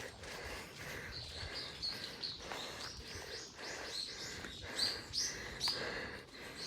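A small songbird calling over and over, a run of short high chirps about three a second, louder toward the end.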